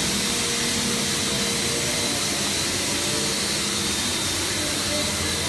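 PE/PP rigid plastic pelletizing machine running: a steady, even mechanical noise with a thin high whine.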